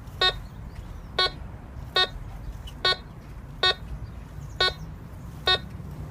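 Maplin Prestige N87KA metal detector giving its target tone: seven short, identical beeps, a little under one a second, signalling the buried 50p coin beneath the coil.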